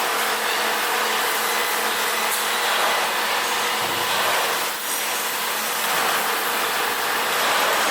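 Industrial tire shredder of a TDF (tire-derived fuel) line running: a loud, steady mechanical din with a constant hum underneath.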